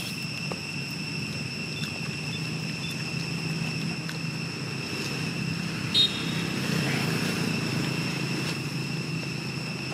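Steady low rumble of distant motor vehicle engines, swelling slightly after about five seconds, under a steady thin high whine, with a single sharp click about six seconds in.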